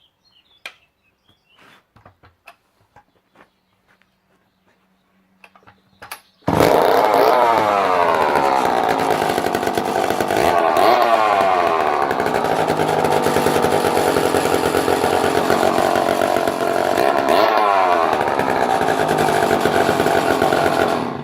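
Lombard two-stroke chainsaw, its bar and chain removed, starting about six seconds in after a few faint clicks and running very loud, revved up and down several times, then cutting off near the end.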